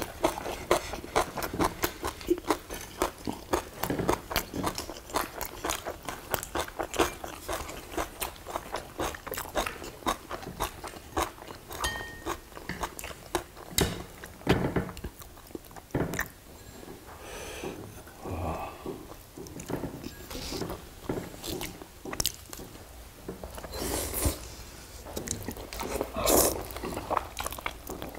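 Close-miked eating by two people having grilled fish and kimchi: chewing and biting, with many small irregular clicks and taps of chopsticks against the dishes.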